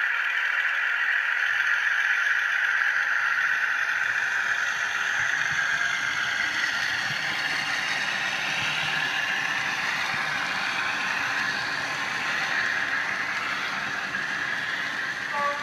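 Model freight train running along the layout's track: a steady motor whine with wheels rattling on the rails, slowly fading as the wagons move away.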